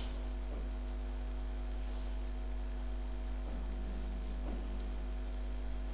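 Low, steady electrical hum with faint steady tones above it and a rapid, evenly spaced high-pitched ticking: background noise of the recording between spoken lines.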